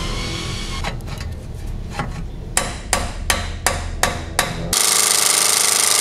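Hammer blows on metal, about seven sharp strikes in quick succession, then from about two thirds of the way in a loud steady power-tool rattle, while trying to break a stuck wheel lock loose.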